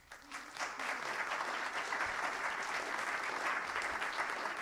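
Audience applauding, swelling up within the first second and holding steady.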